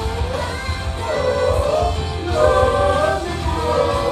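Upbeat J-pop idol song with a female vocal over a backing track with steady bass, played through a live venue's sound system.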